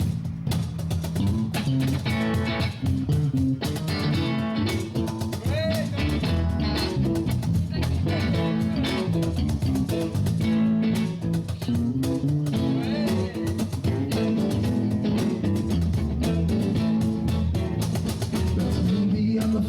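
Live band playing an instrumental break: guitar leading over bass and drums with a steady beat.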